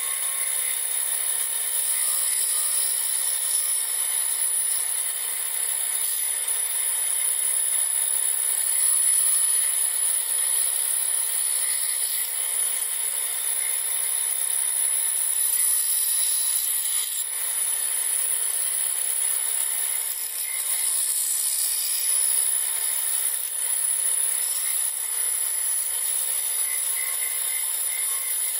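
Small benchtop power saw running steadily with a high whine as its thin blade cuts through a thin white sheet being fed by hand.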